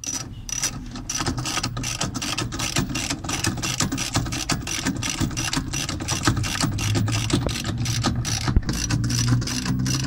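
Ratchet wrench clicking rapidly as it runs the stator mounting bolts of a washing machine's direct-drive motor.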